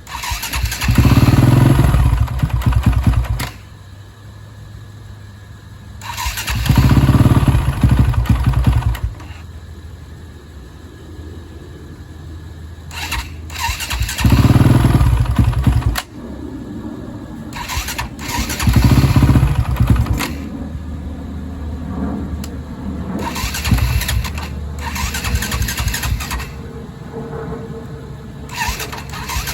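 2004 KTM 450 EXC's single-cylinder four-stroke engine catching on a cold start after years of sitting, with the choke on. It runs unevenly at a low idle, broken by four loud bursts of throttle lasting a second or more each.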